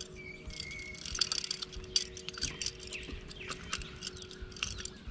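Scattered light clicks and clinks of a fishing lure's metal hooks as it is worked free of a small largemouth bass's mouth. Birds chirp in the background over a faint steady hum.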